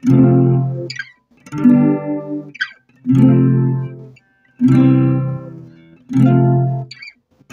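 Acoustic guitar strumming: five chords about a second and a half apart, each struck and left to ring out.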